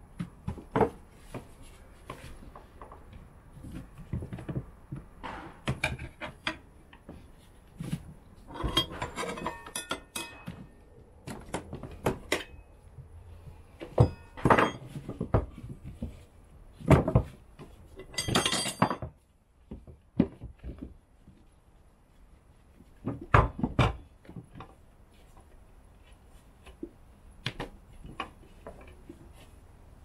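Motorcycle tyre being worked over an alloy rim by hand with tyre levers: an irregular run of metal clinks and knocks, with a few longer scraping stretches as the rubber bead is pushed and levered over the rim.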